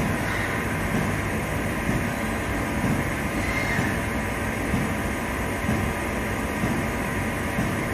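Doosan Puma ST32G CNC turning centre machining under flood coolant: a steady mix of coolant spray and cutting noise.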